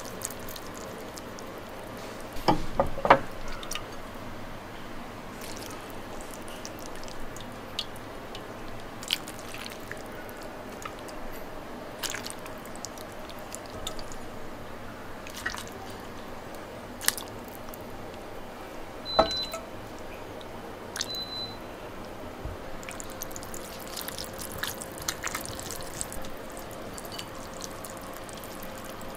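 Scattered clinks and taps of chopsticks and a ladle against a ceramic bowl and pot, with soup dripping and splashing as it is ladled over noodles. The loudest knocks come a few seconds in and again about two-thirds of the way through, over a steady low background hum.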